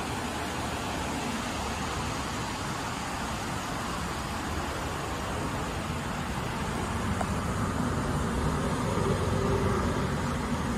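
Steady low rumble of motor-vehicle noise, growing a little louder near the end.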